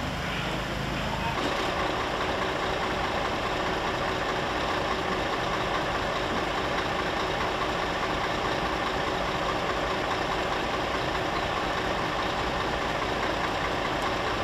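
Diesel engine of a Scania fire engine running steadily at idle. About a second and a half in, the steady sound changes abruptly from a lower hum to a fuller, brighter running noise.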